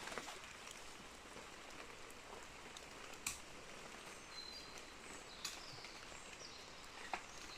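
Faint rural outdoor ambience: a steady hiss, a few short high bird chirps about halfway through, and four sharp clicks or snaps spread across it.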